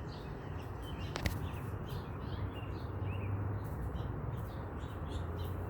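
Small birds chirping intermittently over a low, steady background hum, with one sharp click about a second in.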